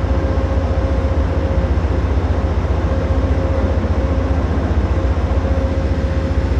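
Amtrak passenger train's diesel locomotive idling while the train stands at the station: a steady low rumble with a constant hum over it.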